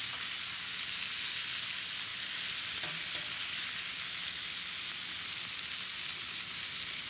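Flour-dredged chicken cutlets sizzling steadily in butter and olive oil in a hot skillet, the even sizzle of a pan hot enough to sauté and brown.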